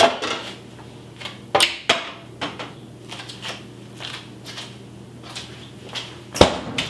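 Kitchen handling sounds: a string of knocks and clicks, likely a pan and cookware being set out on the stove, the loudest knock about six and a half seconds in. A faint steady low hum runs beneath.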